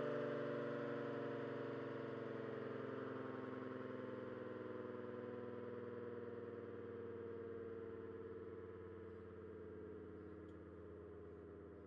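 ACA Allertor 125 outdoor warning siren winding down at the end of its full-alert test: a chord of several tones slowly sliding lower in pitch and fading away.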